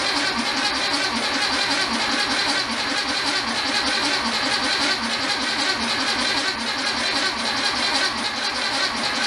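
1964 Volkswagen Beetle's air-cooled 1500cc flat-four engine turning over steadily on a cold start, with fuel still being drawn up to the carburettor after its float bowl was primed by hand.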